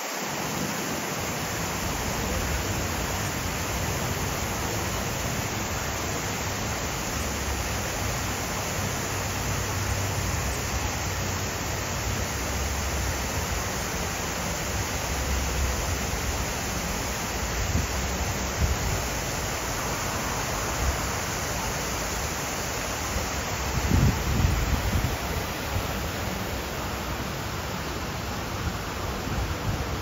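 Steady, even rushing noise with an uneven low rumble that swells briefly about 24 seconds in.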